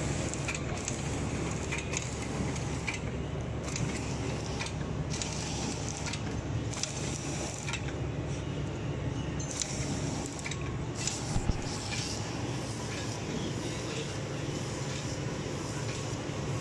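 Mask packing machine (a horizontal flow-wrapper) running: a steady motor and conveyor hum with frequent light clicks from the wrapping mechanism, and a couple of louder knocks about eleven seconds in.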